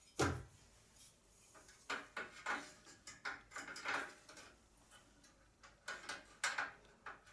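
Light knocks and clatter of parts and tools being handled: a sharper knock at the start, then about half a dozen irregular short knocks.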